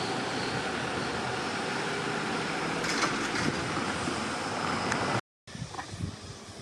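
A Tohoku Main Line train running through the level crossing: a steady rushing rumble with no clear crossing-alarm tones. It cuts off suddenly about five seconds in and gives way to quieter, gusty wind noise on the microphone.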